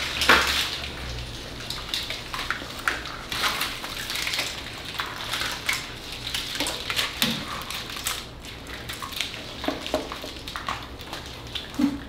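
Packaging rustling and crinkling while the many plastic connectors of a large LT5 engine wiring harness click and clatter against each other as it is unpacked and lifted. The handling clicks come irregularly over a steady low hum.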